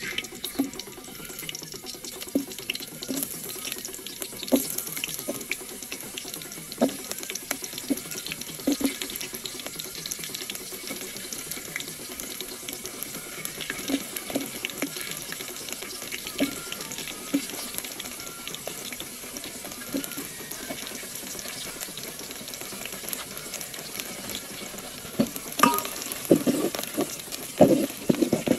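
Kitchen work at food preparation: a steady hiss with scattered knocks and clinks of utensils, growing into louder, busier clattering in the last few seconds.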